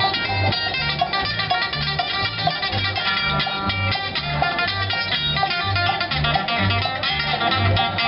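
Bluegrass band playing an instrumental passage: fast plucked banjo and guitar picking over a bass line that alternates between two low notes on the beat.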